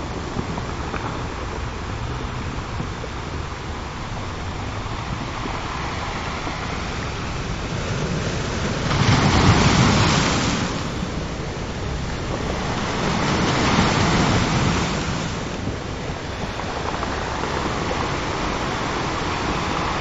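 Ocean surf washing in steadily, with two louder waves breaking, about nine and fourteen seconds in.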